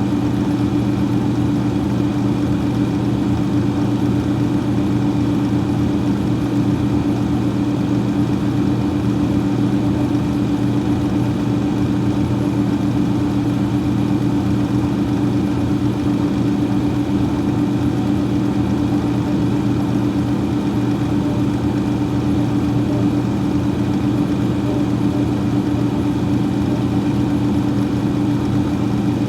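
Freezer fan running with a steady, even hum and a faint whoosh of air that does not change.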